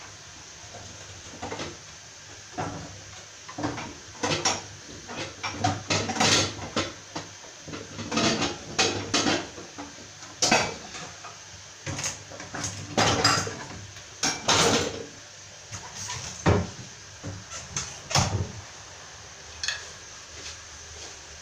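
Irregular light knocks and clatter of plates being handled on a kitchen counter as orange segments are picked up and laid on top of a cake.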